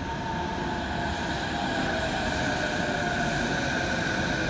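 Chiba Urban Monorail Series 0 suspended monorail train running into the station, its Mitsubishi IGBT VVVF inverter giving a steady high whine with several tones over the running noise, growing a little louder as the train draws near.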